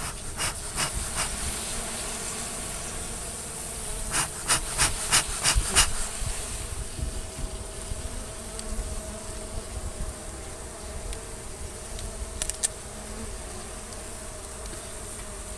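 A honey bee colony, exposed while its comb is being cut out, buzzing steadily in a dense drone. A few sharp clicks come early, a quick run of about six comes around the middle, and two more come later.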